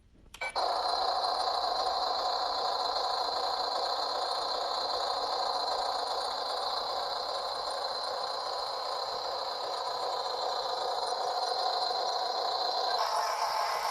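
Yi Gong 870 RC excavator's small electric motors and plastic gears running with a steady high whine and a rattle. It starts about half a second in and grows louder and harsher about a second before the end.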